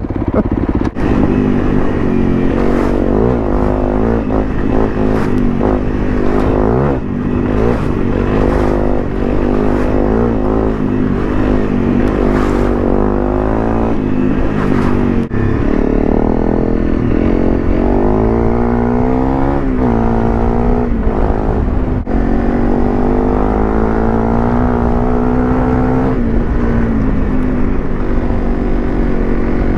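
Honda CRF250 Rally's single-cylinder engine running under load off-road, its revs rising and falling with the throttle, with a marked rev up and back down a little past halfway. Knocks and clatter come through repeatedly in the first half.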